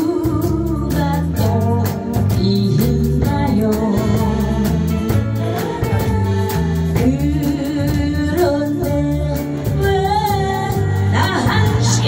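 A woman singing a ballad live with a band of electric guitar, bass guitar, keyboard and drum kit keeping a steady beat; she holds a note with vibrato about ten seconds in.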